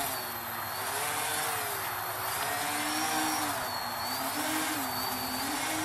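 Home-built quadcopter's electric motors and propellers buzzing as it hovers low, the pitch wavering up and down every second or so as the motors speed up and slow down.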